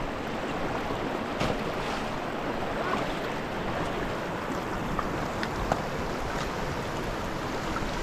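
Fast-flowing river rushing steadily, with a few faint clicks over it.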